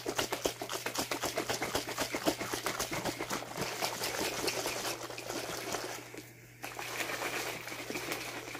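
A plastic shaker cup of G Fuel drink powder and water being shaken to mix it, the liquid sloshing in quick, even strokes, several a second, with a short break about six seconds in.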